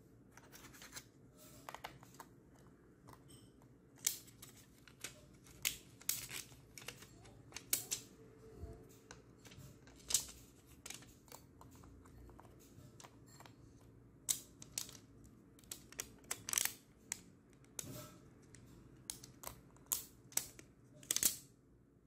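Irregular small clicks, taps and crinkles of hands working in an open laptop: a SO-DIMM RAM module is fitted into the memory slot of a Lenovo ThinkPad P53 under its black plastic shield film. The clicks come in clusters, loudest in the middle and near the end.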